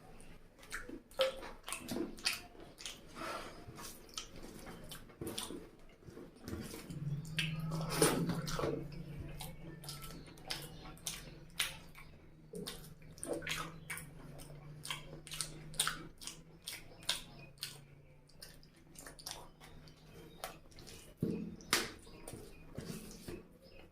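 Close-up wet eating sounds: chewing, lip smacks and sticky mouth clicks from someone eating chicken curry and rice. A steady low hum comes in about a third of the way through and fades out past the middle.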